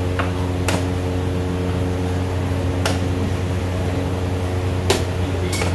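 A steady mechanical hum with a handful of sharp clicks at uneven moments, the clacks of chess pieces and clock buttons on the wooden tables.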